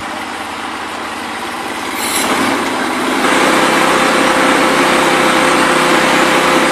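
Norwood portable band sawmill running, its engine and band blade sawing through a large log. The sound grows louder about two to three seconds in as the blade cuts into the wood, then holds steady with a constant tone over the engine noise.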